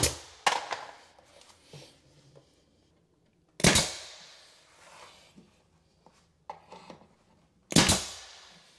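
Pneumatic nail gun firing nails into wooden brick-molding trim at the base of a vanity cabinet: four sharp shots a few seconds apart, the first two about half a second apart, each with a short fading tail, plus a few light clicks as the tool is repositioned.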